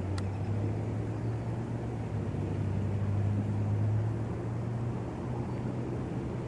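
A steady low engine drone from a distant motor, swelling slightly about three to four seconds in, with one short click near the start.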